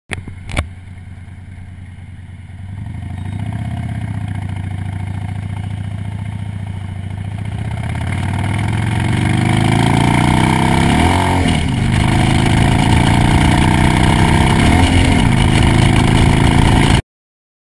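Harley-Davidson motorcycle engine ticking over briefly, then pulling hard from a stop, its revs climbing steadily with two gear changes, about 11 and 15 seconds in. Wind noise builds with speed, and the sound cuts off suddenly near the end.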